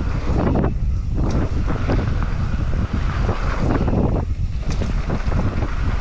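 Wind buffeting the microphone of a mountain biker riding fast over a jump trail, over the low rumble of tyres on dirt, with a few short rattles and clicks from the bike.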